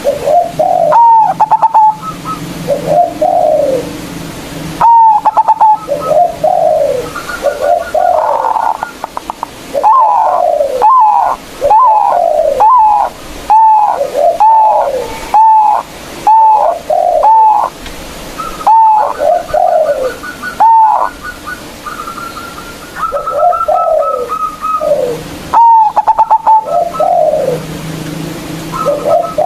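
Zebra dove (perkutut) singing loudly in repeated phrases of short, bubbling coos with higher trilled notes between them. This is the male's territorial song, used to call out rival birds.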